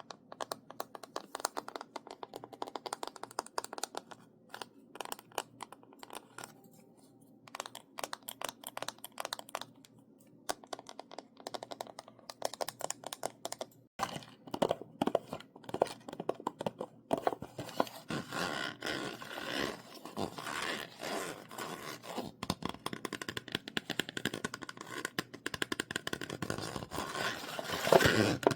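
Quick ASMR tapping on small objects close to the microphone. About halfway through it switches to a different object, with denser tapping mixed with scratchy, crinkly scraping.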